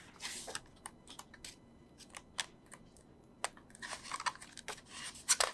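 Pages of an album photo book being turned by hand: scattered light paper clicks and soft rustles, with a few louder page swishes in the last second and a half.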